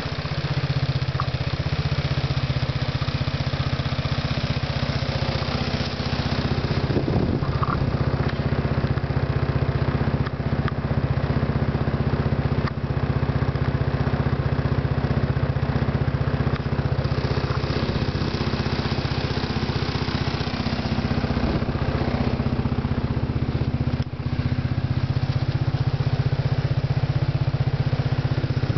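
2002 Arctic Cat 300 4x4 ATV's single-cylinder four-stroke engine running steadily at idle.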